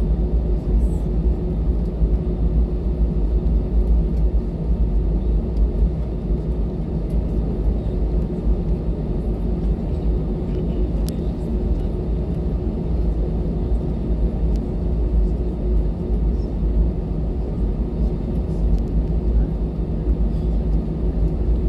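Cabin noise of an Airbus A320 on the ground before takeoff: the jet engines at low thrust and the air conditioning make a steady low rumble with an even hum. There is a faint click about eleven seconds in.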